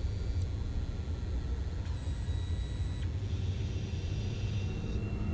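Steady low rumble of subway-station ambience, with thin high electronic tones over it: a brief one at the start, a set lasting about a second in the middle, and a steady one near the end.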